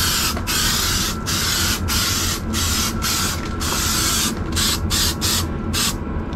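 Aerosol spray-glue can hissing in a run of long strokes with brief breaks, laying a thick coat of adhesive onto EVA foam tiles; the strokes come shorter and quicker near the end.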